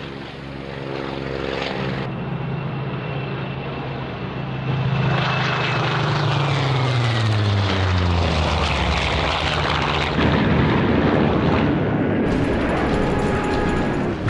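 Piston-engine propeller aircraft running, the engine note dropping in pitch as a plane passes by. From about ten seconds in, a louder, rougher rush of noise takes over.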